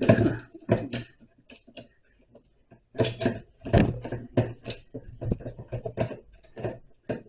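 Irregular metallic clicks, clinks and knocks of a saw chain and bar being handled while the chain is fitted onto a Stihl 070 chainsaw.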